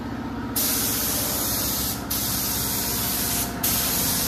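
Gravity-feed spray gun spraying clear coat onto a panel: a loud, even hiss of atomising air that starts about half a second in and breaks off briefly twice as the trigger is let go between passes. A steady low machine hum runs underneath.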